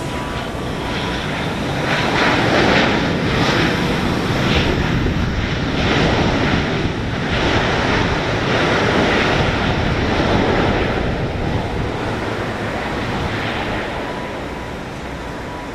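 Jet engines of a JetBlue Airbus A320 running as it rolls along the runway: a steady roar that swells about two seconds in and fades over the last few seconds.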